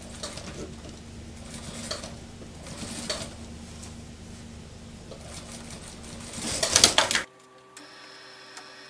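Industrial sewing machine: a steady motor hum with a few light strokes as the suit sleeve is fed under the foot, then a short loud run of stitching about six and a half seconds in that cuts off abruptly. A quieter steady whine follows.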